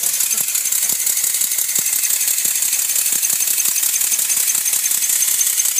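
Working scale model of an American La France steam fire engine, its engine and water pump running: a fast, steady mechanical rattle with a high hiss and scattered sharp clicks.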